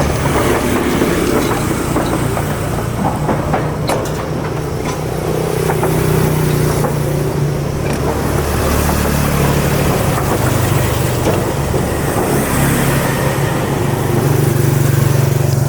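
An engine running steadily, a low droning hum under broad rushing noise.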